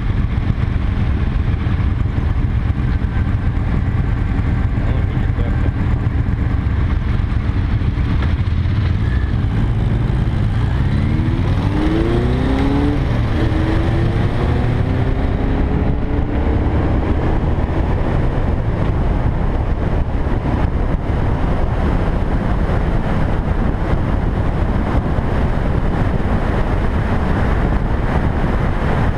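Motorcycle riding at road speed, heard from the bike with heavy wind rumble on the microphone. About ten seconds in, an engine revs up, and then climbs again more slowly as it accelerates through the gears.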